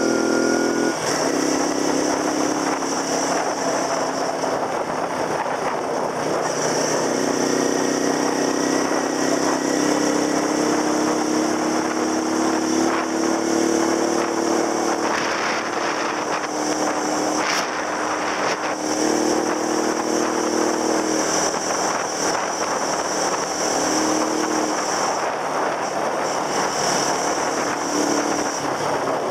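Small scooter engine running while riding, its pitch shifting up and down with speed, under a steady rush of wind noise.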